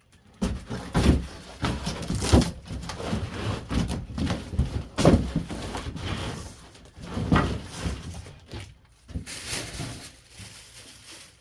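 Large cardboard shipping box being handled and moved aside: cardboard scraping and rubbing, with several knocks and thumps.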